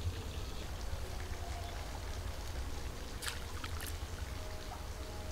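Pond water splashing and swishing as a hand net on bamboo poles is pushed through it, with two short splashes about three seconds in, over a steady low rumble.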